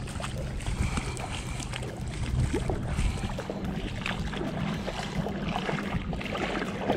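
Wind rushing over the microphone, with a steady low hum underneath and a few small knocks from handling.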